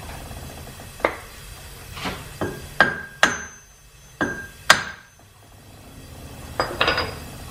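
A hammer striking metal: about seven blows at uneven spacing through the first five seconds, the heavier ones leaving a short metallic ring, then a quick run of three or four taps near the end.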